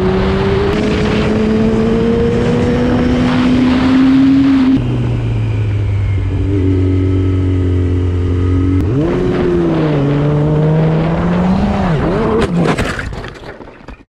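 Sport motorcycle engine running hard over wind rush, its pitch rising for about five seconds, then dropping to a lower steady note and climbing again. Near the end the pitch swings wildly amid scraping and clattering as the bike slides out and goes down, and the sound dies away.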